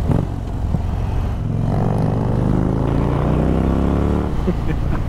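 Indian Chief's V-twin engine, breathing through a Jekill and Hyde exhaust, pulling hard as the motorcycle accelerates. Its pitch climbs steadily from about a second and a half in, then falls away abruptly a little after four seconds, under a constant low rumble.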